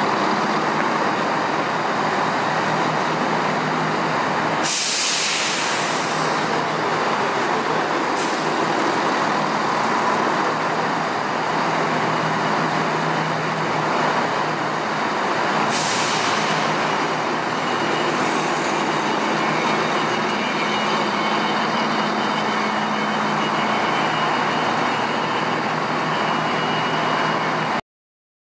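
Diesel train running at the platform, with two sharp hisses of air from the brakes, about five seconds in and again about sixteen seconds in; the sound cuts off abruptly near the end.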